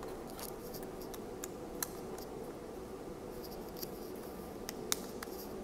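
Plastic handling sounds from a small dashcam as its battery cover is fitted back on: light scratching and rubbing of fingers on the plastic case with scattered small clicks, and a sharp click near the end.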